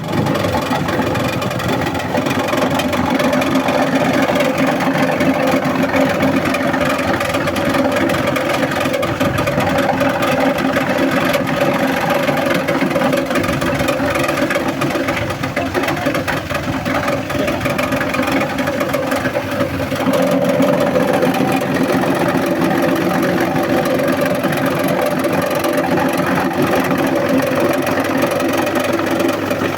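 SM-15 multipurpose shredder machine running steadily with a constant mechanical hum. It grows slightly louder and shifts in tone about twenty seconds in.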